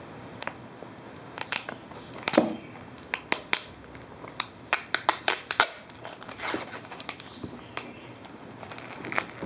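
Plastic packaging crinkling and clicking as it is handled and opened by hand, with irregular sharp clicks and a couple of short rustles.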